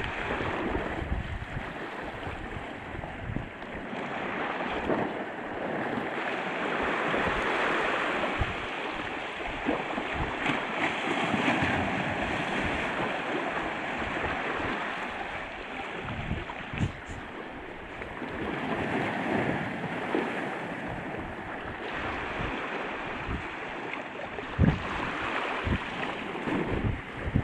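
Sea surf washing on the shore, swelling and fading every several seconds, with wind buffeting the microphone in occasional low thumps.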